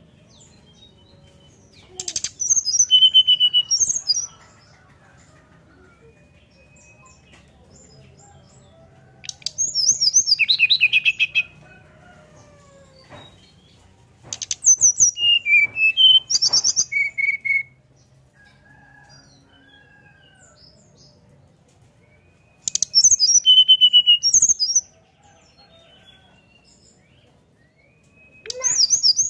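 Brown-chested jungle flycatcher singing its fluting song: loud phrases of high, quick whistled notes, each two to three seconds long, coming every five to seven seconds. There are five phrases, and the last starts near the end.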